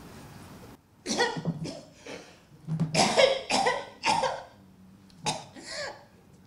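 A woman coughing and choking in several harsh fits, starting about a second in, each a cluster of rasping coughs with a strained voice in them. The coughing is acted, part of a stage monologue.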